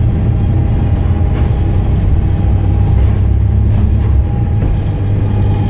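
Lower-deck cabin noise of a Volvo B7TL double-decker bus under way: a steady low engine and drivetrain rumble with a thin, constant whine above it.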